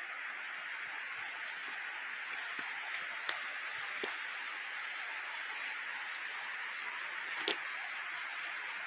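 Night rainforest ambience: a steady rush of running water under a continuous high-pitched insect chorus. Two sharp clicks stand out, about three seconds in and again about seven and a half seconds in.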